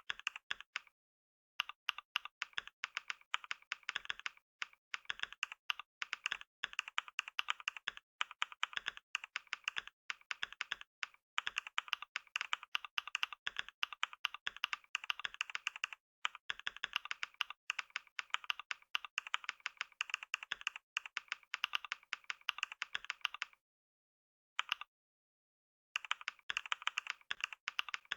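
Computer keyboard typed on quickly and continuously, a dense run of key clicks. It stops briefly about a second in, and again for a couple of seconds near the end, with one lone keystroke in that second gap.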